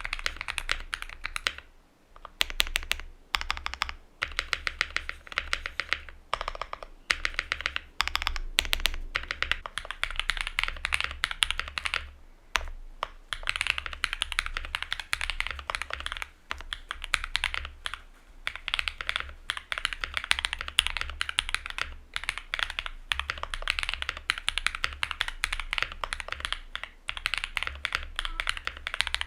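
Fast typing on a Luminkey65 mechanical keyboard with an FR4 plate and lubed, filmed switches: a dense, clacky run of keystrokes broken by short pauses every few seconds.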